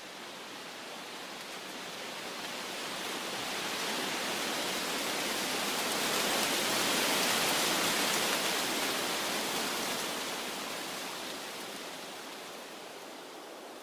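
Woodland foliage rustling, a steady rushing hiss of leaves that swells gradually to its loudest about halfway through and then dies back down.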